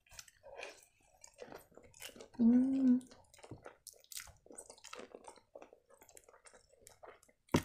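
Mouth sounds of chewing a bite of shawarma: soft wet smacks and squishes. About two and a half seconds in there is a short hum from the voice, the loudest sound.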